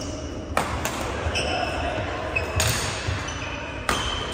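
Badminton rackets striking a shuttlecock in a doubles rally: a few sharp hits spread through, echoing in a large hall, with short squeaks of shoes on the wooden court floor between them.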